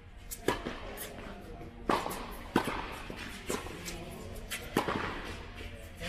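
Tennis rally: sharp pops of a tennis ball struck by rackets and bouncing on the court, about five loud ones in six seconds, unevenly spaced.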